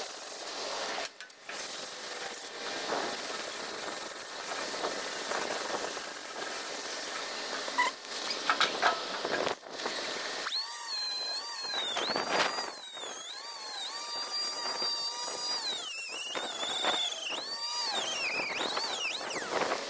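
Abrasive scraping of paint on a metal boat gas tank. About halfway in, a power tool's whine starts and wavers up and down in pitch as it is worked against the metal.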